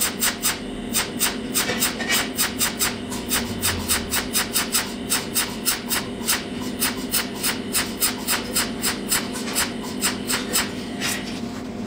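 Rapid, even mechanical ticking, about four to five a second, over a steady low hum.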